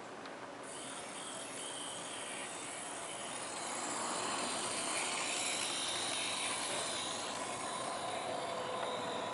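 Small electric motor of an N scale model bus whining as it drives along the layout's road, its pitch wavering slightly. The whine comes in about half a second in and grows louder over the next few seconds.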